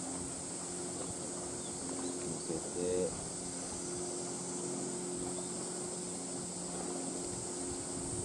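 Steady outdoor ambience: a high insect-like drone over a low steady hum, with a brief short sound about three seconds in.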